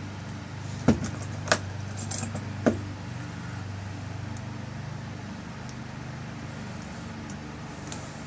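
Small metal lock parts clicking and tapping as the tail piece is fitted back onto a rekeyed lock cylinder: three sharp clicks in the first three seconds with a few lighter ticks between. A steady low hum runs underneath.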